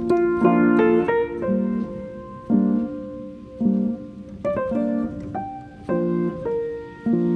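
Background instrumental music: soft chords struck about once a second, with single melody notes ringing over them.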